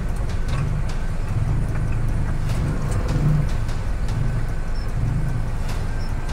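Engine and road noise of a vehicle creeping in slow traffic, heard from inside the cabin: a steady low rumble with a few light clicks.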